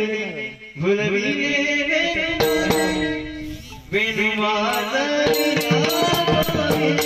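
Marathi devotional bhajan music: a male voice singing over held instrumental tones, with pakhawaj drum accompaniment and a steady beat of sharp strikes that comes in about halfway through.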